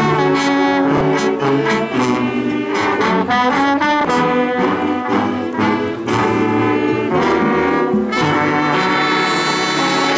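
Marching band (banda de paz) playing: trumpets and trombones carry the tune over drum hits. The music ends on a chord held over the last couple of seconds.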